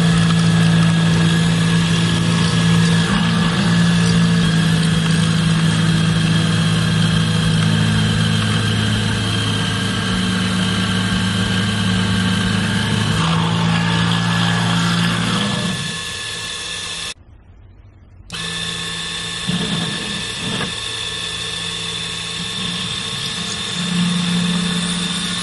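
Small CNC mill's spindle running steadily while an end mill cuts a thin metal plate. The pitch of the cut shifts a couple of times, and the sound breaks off for about a second roughly two-thirds of the way through.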